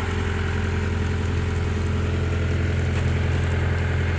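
A heavy engine running steadily at an even speed, a low, unchanging drone.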